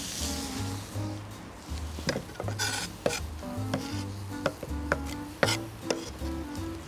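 Kitchen utensils clinking and tapping against dishes or a pan about ten times, irregularly, with a frying sizzle fading out in the first moment.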